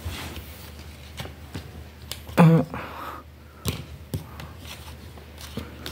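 Scattered clicks and knocks of a Kalite nut-milk maker's glass jug being handled by its plastic handle on the motor base, with a brief vocal sound about two and a half seconds in.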